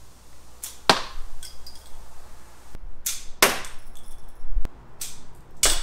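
Half a dozen sharp snaps and clacks, some in close pairs, from a 3D-printed rubber-band mini crossbow and its plastic darts being handled.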